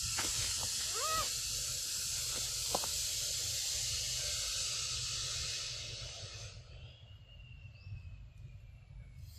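A steady high hiss that fades away about six or seven seconds in. About a second in, a young macaque gives one short squeaky call.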